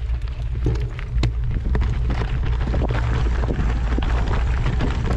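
Wind buffeting the microphone in a steady low rumble, with scattered crackles and ticks throughout.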